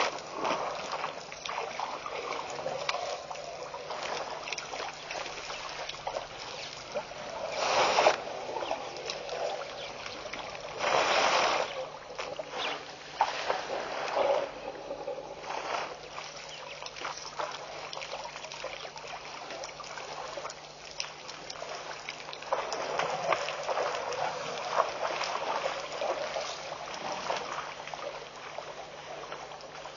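Water sloshing and trickling at the edge of a waterhole where African elephants are drinking and wading, with louder splashing rushes about 8 and 11 seconds in. A faint steady low hum runs underneath.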